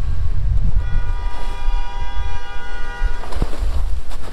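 A vehicle horn on the street held in one long honk of about two seconds, starting about a second in, with wind rumbling on the microphone.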